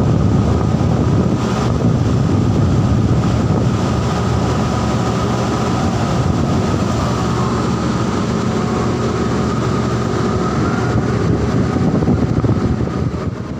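Floating crane's engine and winch machinery running steadily as the coal grab is swung and lowered, with a faint higher whine that rises slightly near the end.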